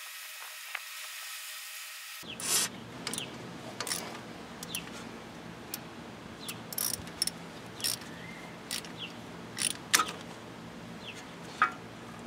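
Ratchet wrench clicking in short, irregular strokes as it works a stubborn, damaged bolt on the truck's ABS wheel speed sensor back and forth. A faint steady hum for about the first two seconds, then scattered sharp clicks over a light hiss.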